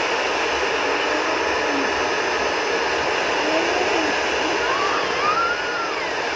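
A handheld iTeraCare terahertz wand running, its cooling fan making a steady, even rushing whir.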